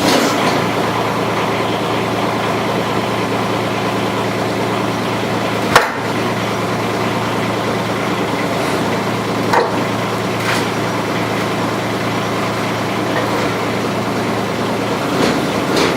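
Kubota U10 mini excavator's diesel engine running at a steady speed just after starting, with a few short sharp knocks over it, the loudest about six seconds in.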